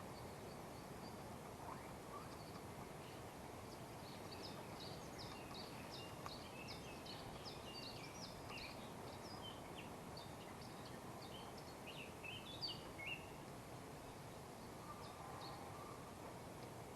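Faint songbird song: a quick series of short, high chirping notes for several seconds, over steady outdoor background hiss.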